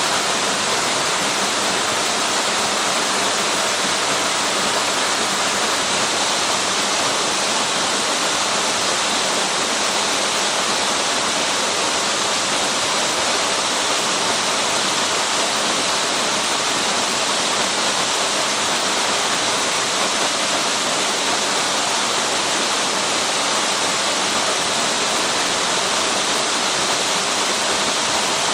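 Waterfall rushing steadily, a loud even roar of falling water.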